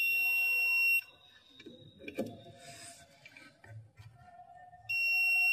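Mastech digital multimeter's buzzer giving a steady, high-pitched beep while the test probes are held across the board, the sign of a low-resistance reading between them. It cuts off about a second in and sounds again near the end.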